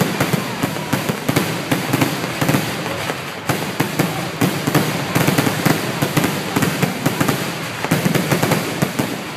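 Fireworks finale barrage: many shots going off at once in a dense, continuous crackling and popping, with heavier thumps mixed in.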